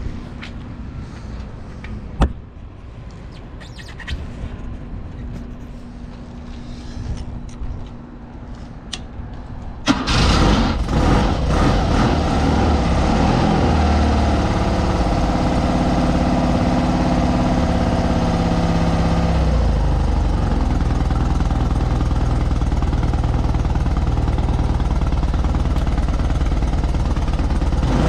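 1985 BMW R80 G/S Paris-Dakar's air-cooled boxer twin cold-started on choke: a few clicks first, then about ten seconds in the engine catches suddenly and settles into a steady idle.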